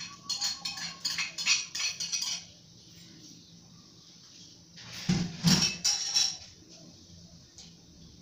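A metal spoon scraping and tapping against a ceramic plate in a quick run of clinks as food is pushed off into a pot. About five seconds in comes a louder clatter of kitchenware with a dull thump.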